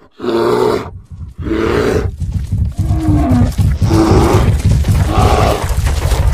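Animal stampede sound effect: two deep roars, then from about two seconds in a heavy low rumble of many running hooves, with a few animal calls over it.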